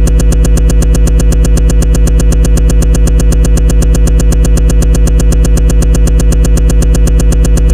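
Phonk beat section made of a loud, sustained synthesizer chord over heavy deep bass, chopped into rapid, even stuttering pulses.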